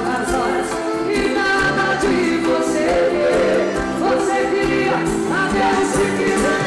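A song playing: a singing voice holding and bending notes over instrumental backing.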